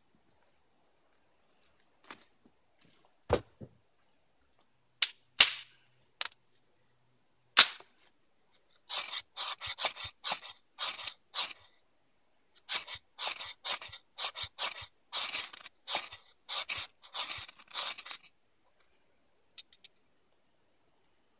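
A knife scraping a ferrocerium rod to throw sparks into wood shavings. A few separate sharp scrapes and knocks come first, then a long run of quick strokes, about two or three a second, until the tinder catches.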